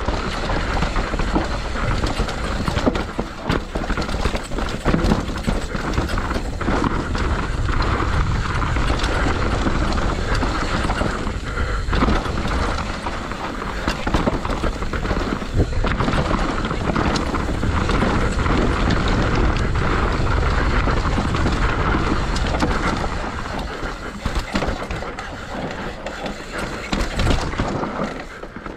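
Mountain bike riding fast down a dirt downhill trail: the tyres rolling over dirt and roots, the bike rattling and knocking over bumps, and wind rushing over the on-board camera's microphone.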